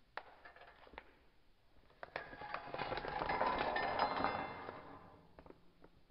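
Clear plastic packaging crinkling and small steel sewing-machine parts (a binder folder, presser foot and throat plate) clinking as they are unpacked onto a table. A few light clicks come first, then about two seconds in a louder, denser stretch of crinkling and clinking that fades out near the five-second mark.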